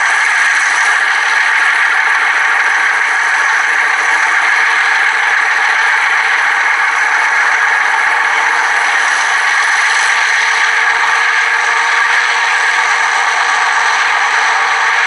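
Atlas model GE U36C locomotive running, its motor and gear drive making a steady, loud rattling and scraping noise with no deep engine sound.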